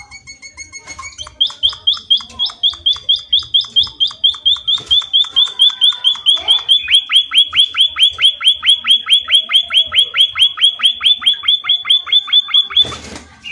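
A small songbird calling in a long, loud run of rapidly repeated notes, about four or five a second, each sliding down in pitch; the notes deepen in their downward sweep about halfway through. A short burst of noise cuts in as the run stops near the end.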